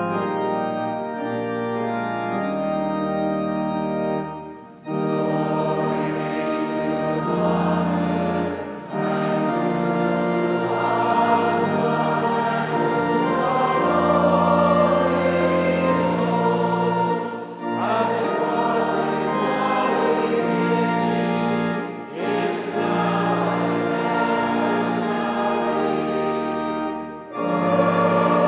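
Choir singing with pipe organ accompaniment, in phrases of about four seconds with short breaks between them.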